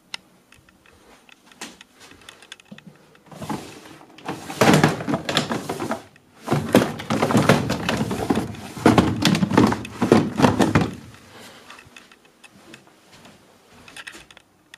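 Clear plastic storage drawers being pulled open and shut and their contents rummaged through. A long stretch of clattering and knocking from about three and a half to eleven seconds in, with lighter clicks and taps either side.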